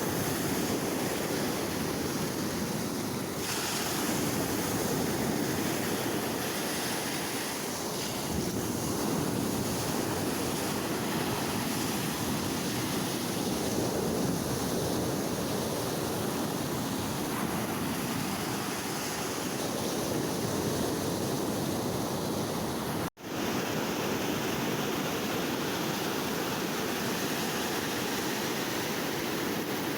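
Sea waves washing onto a shore, a steady rushing surf that swells and eases, broken by a momentary gap about three-quarters of the way through.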